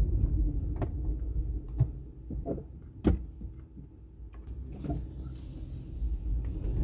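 Car cabin noise while driving: a steady low road rumble with a few sharp clicks and knocks, the sharpest about three seconds in.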